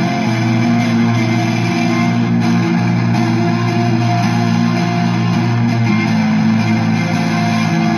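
Squier Affinity Jazzmaster electric guitar played through a Behringer DR600 reverb placed before a Behringer HD300 distortion, making a dense, sustained shoegaze wash of distorted, reverberant chords. The chords are held for a few seconds each before changing.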